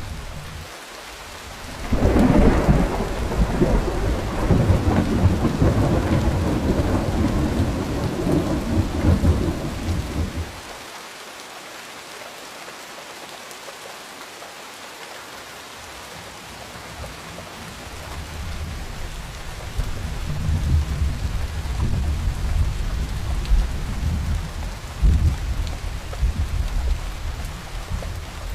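Steady rain with rolling thunder: a rumble breaks in suddenly about two seconds in and rolls on for some eight seconds, then a second rumble builds slowly in the second half, with a sharper clap near the end.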